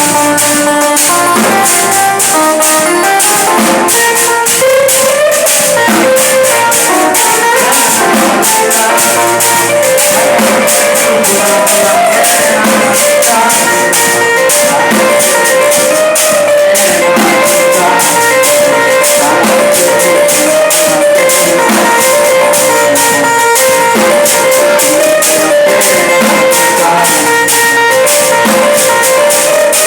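Music with a steady, even beat and drums under a melody of held notes.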